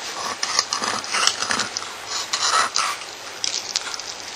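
Filleting knife cutting along a trout's backbone, making a run of short, irregular scrapes as the blade rides over the stiff rib bones.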